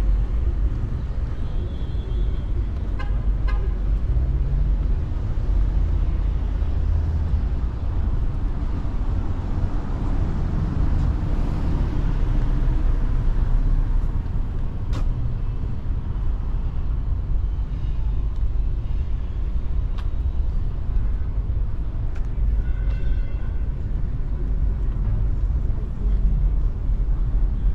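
City street traffic noise, a steady low rumble, with a short double car-horn toot about three seconds in.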